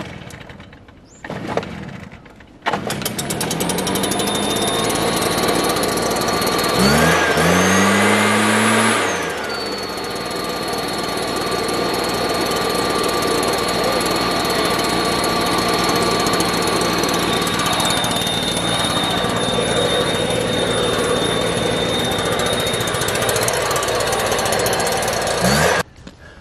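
Stihl backpack mist blower's small engine starting up about three seconds in, then running steadily. It revs up briefly about seven seconds in and drops back about two seconds later. The sound cuts off suddenly near the end.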